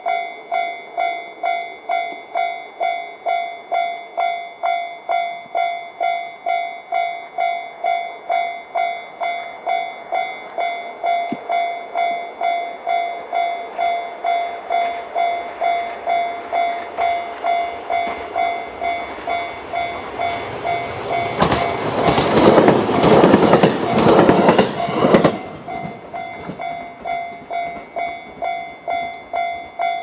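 Japanese level-crossing alarm ringing its JR standard electronic bell tone at about three strikes every two seconds. About 21 seconds in, an E131 series electric train passes over the crossing for about four seconds, louder than the alarm, and the alarm stops at the very end.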